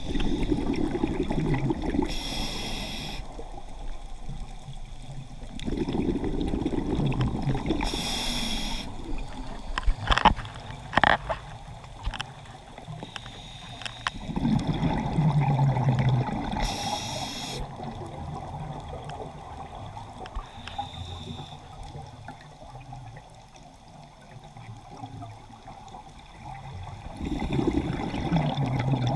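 Scuba diver breathing through a regulator, heard underwater: a drawn inhalation through the demand valve followed by a burst of exhaled bubbles, repeating three times with a fourth inhalation near the end. A few sharp clicks about ten seconds in.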